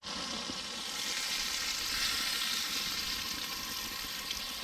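Bacon sizzling steadily on the grate of a portable propane camp grill.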